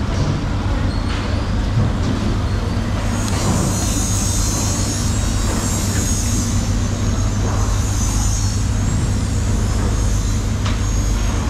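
A steady low mechanical hum under a constant noisy background. A brighter hiss runs through the middle seconds, and there are a few faint knocks.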